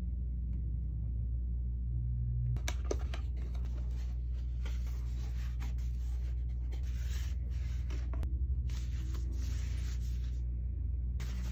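Cardboard box flaps and soft paper wrapping being handled as a camera lens is unpacked: rustling, rubbing and scraping in repeated bouts starting about two and a half seconds in, with a sharp click near the start. A steady low hum lies underneath.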